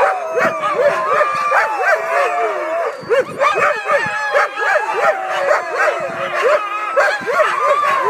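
Many sled dogs barking, yipping and howling together at a race start, as sled dogs do when eager to run. It is a dense, unbroken chorus of overlapping high yelps and rising-and-falling whines.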